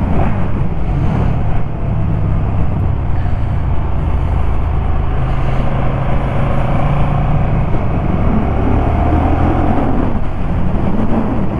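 KTM 1290 Super Duke GT's V-twin engine running under way on the road, its note dipping and rising again near the end as the revs change.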